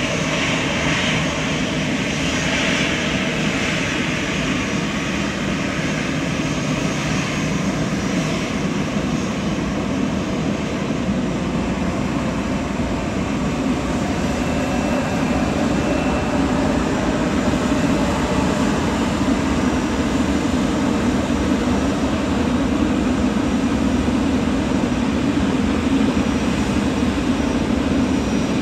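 Jet airliner engines running with a steady, continuous noise. A higher hiss fades over the first few seconds while a deep rumble builds and grows louder through the second half.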